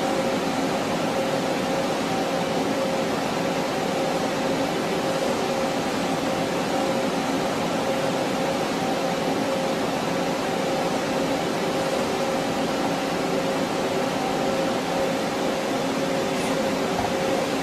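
Doosan PUMA V8300MR CNC vertical turning center running: a steady mechanical hum with several held tones over an even whir.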